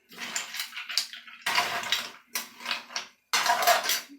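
A utensil scraping and clinking against a dish in repeated strokes as a sauce is mixed together.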